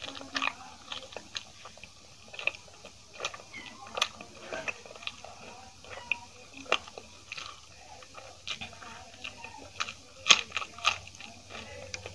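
Close-miked mouth sounds of a person chewing a mouthful of aloo paratha dipped in yogurt: irregular smacks and clicks, the loudest about ten seconds in.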